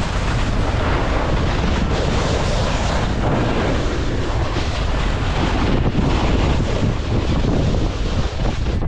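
Loud, steady wind rush buffeting the microphone of a camera carried by a snowboarder riding fast downhill.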